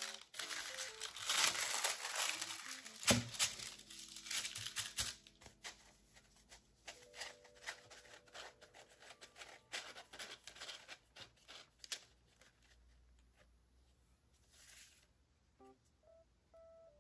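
Tissue paper crinkling and thin plastic stencil sheets rustling as they are unwrapped and handled. The noise is busiest in the first few seconds, with one sharp snap about three seconds in, then softer handling. Light background music plays underneath.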